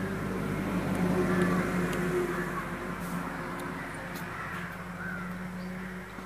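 Birds calling now and then, over a steady low hum.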